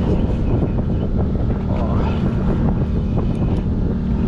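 Steady low drone of a boat's engine, with wind buffeting the microphone.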